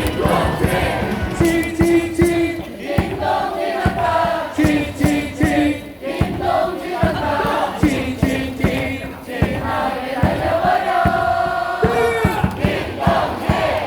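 Baseball stadium crowd chanting and singing a cheer song along with amplified music, over rhythmic claps and beats.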